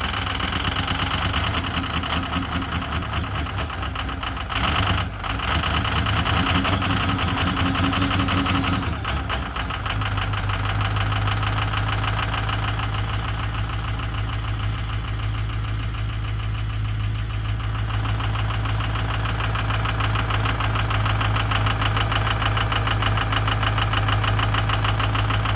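Ford 6.0 L Power Stroke V8 diesel idling with a rapid, even knock, which the owner suspects comes from a bad injector. About ten seconds in, the low drone of the engine settles and grows steadier.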